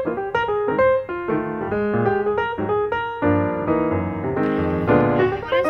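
Background piano music: a quick run of single notes, filling out into fuller chords about three seconds in.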